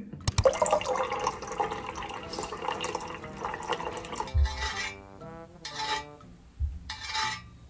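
Hot water pouring from a water dispenser's tap into a steel-lined tumbler, a steady splashing fill. It stops after about four seconds, and a couple of dull knocks follow over soft background music.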